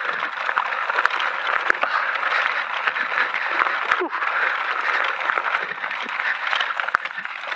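Electric mountain bike tyres crunching and crackling steadily over loose rock and gravel on a dirt trail climb, with the bike rattling.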